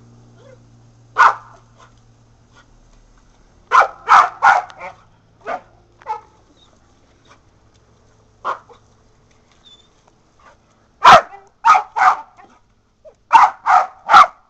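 Kelpie-mix dog barking at a lawn sprinkler and hose: about a dozen short, sharp barks, coming singly and in quick runs of three or four.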